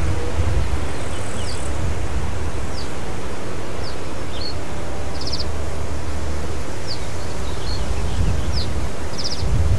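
Male reed bunting singing: two short songs of a few high, quick downslurred notes, each ending in a buzzy note. Heavy wind rumble on the microphone underneath is the loudest sound.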